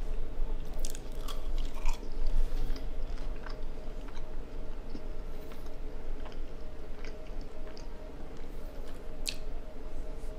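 A person chewing a fast-food meal close to the microphone, with scattered small crunches and mouth clicks. A faint steady hum runs underneath.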